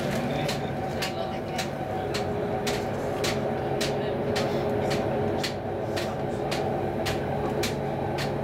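Interior running noise of an Sm5 (Stadler FLIRT) electric commuter train at speed: a steady mix of motor hum and rolling rumble, with sharp clicks repeating about twice a second.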